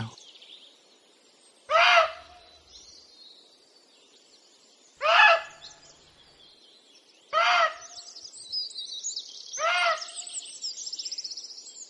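Female muntjac deer giving four short, loud alarm barks, evenly spaced about two to two and a half seconds apart, a sign that she has sensed a person nearby. Faint birdsong carries on underneath.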